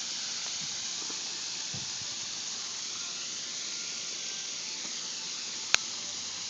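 Small backyard pond waterfall: a steady hiss of water falling and splashing into the pond. One sharp click near the end.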